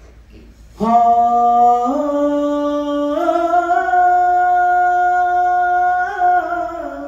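A man singing the drawn-out opening call of a Southern Vietnamese hò folk song into a handheld microphone: one long held note that starts about a second in, steps up in pitch twice, and slides down near the end.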